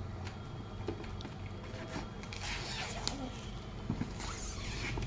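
Gift packaging being torn open by hand: two long ripping, rasping sounds, one about halfway through and one near the end, with small clicks and rustles between.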